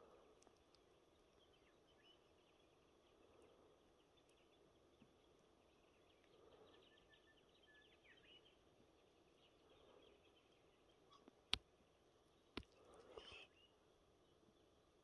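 Near silence: faint outdoor ambience, broken near the end by two sharp clicks about a second apart and a brief rustle.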